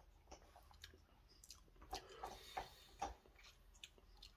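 Faint, scattered mouth clicks and lip smacks of a man tasting a spoonful of thick ketchup, with a few slightly louder smacks about two to three seconds in.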